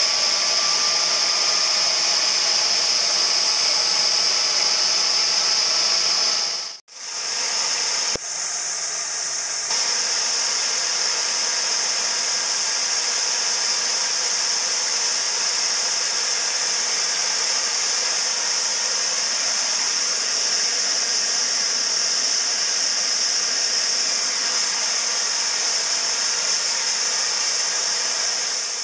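Homemade propane jet engine built from a T3/T4 turbocharger running steadily: a loud rushing hiss with a thin, high turbine whine above it. The sound drops out for a moment about seven seconds in, then carries on unchanged.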